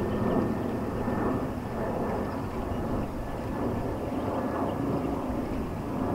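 Steady distant engine rumble that swells and eases slowly, with a faint thin hum above it.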